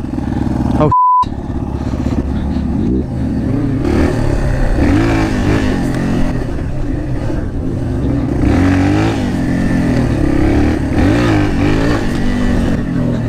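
Motorcycle engine running over rough ground, its pitch rising and falling as the throttle is worked. About a second in, a short beep tone briefly replaces all other sound, as if censoring a word.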